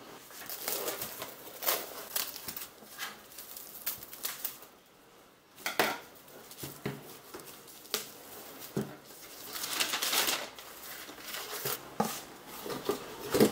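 Painting supplies being handled and set down on a desk: a string of sharp clacks and knocks of hard objects, including a wooden tabletop easel, with a stretch of rustling about ten seconds in.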